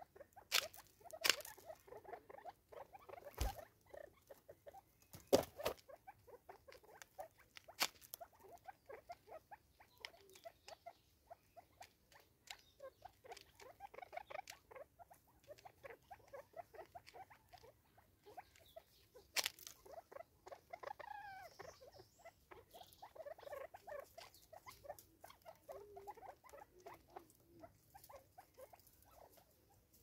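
Spurfowl pecking at seed on a tree stump and in a plastic bottle feeder: a busy patter of small taps and clicks, with a few louder sharp knocks.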